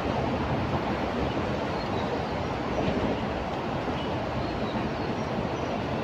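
Steady, even rushing noise with no speech, holding level throughout, with a few faint high chirps.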